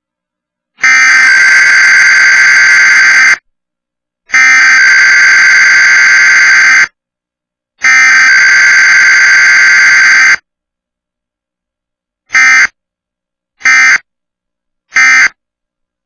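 Emergency Alert System SAME digital data bursts for a Required Weekly Test: three long, harsh buzzing header bursts of about two and a half seconds each, separated by short silences, then three short end-of-message bursts about a second and a half apart.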